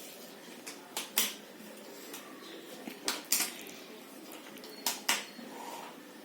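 Jigsaw puzzle pieces clicking and tapping as they are handled and set down, about six sharp clicks, mostly in close pairs, over a low steady background hiss.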